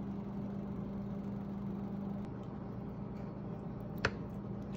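Steady low mechanical hum, like a kitchen appliance or fan running, with one sharp click about four seconds in.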